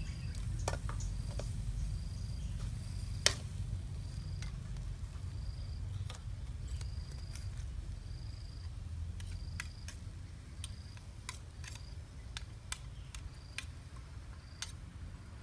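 Metal spatula and spoon clicking and scraping against a metal wok as a stir-fry is stirred, the loudest click a little over three seconds in. Under it, a low steady rumble and an insect's short high chirp repeating a bit more than once a second.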